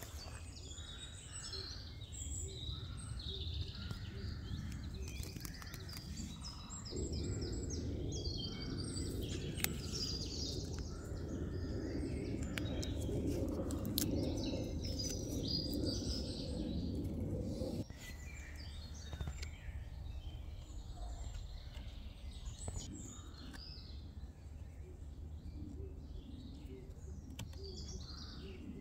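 Songbirds chirping and singing in a forest, many short calls and trills overlapping throughout. Through the middle stretch a steady low rushing noise sits under them for about ten seconds and cuts off abruptly, with a few small clicks near its start.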